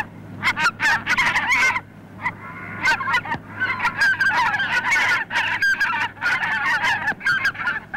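A flock of birds calling, many calls overlapping one after another, with a short lull about two seconds in.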